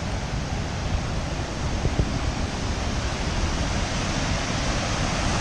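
Steady rushing of the Devil's Kettle waterfall on the Brule River, with a brief knock about two seconds in.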